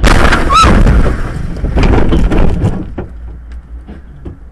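A vehicle crash a short way ahead on the highway: a sudden loud impact noise with a brief high squeal about half a second in, a second loud burst about two seconds in, then it fades to road noise.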